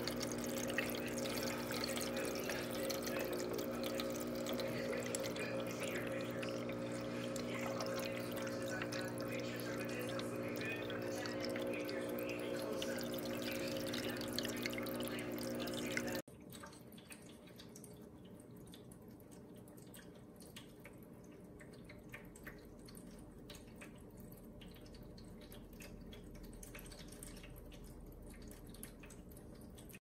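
PetSafe Drinkwell pet water fountain running: its pump hums steadily while water trickles and splashes over the spout. About halfway through the sound cuts off sharply to a much quieter stretch with only faint scattered ticks.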